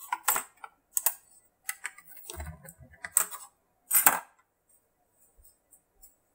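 A run of sharp clicks and light clatters, about six in the first four seconds and the loudest about four seconds in, from a hand handling an aluminium-shelled power bank and pushing in its USB charging cable.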